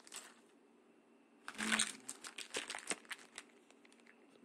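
Clear plastic zip-lock bags of RC car spare parts crinkling as they are handled, loudest in a burst about a second and a half in, followed by scattered small crackles.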